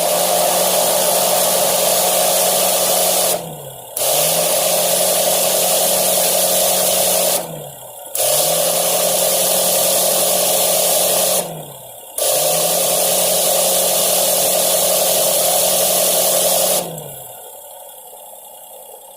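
A loud motor with a strong hiss, switched on four times for about four seconds each, its hum dropping in pitch as it spins down after each run.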